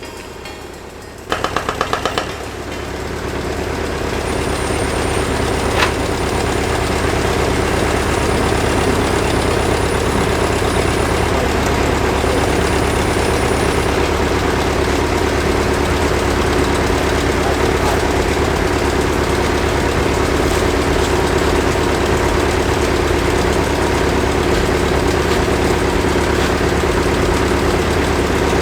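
A burst of rapid loud knocks about a second in, then a vehicle engine running steadily, building for a few seconds and then holding an even level.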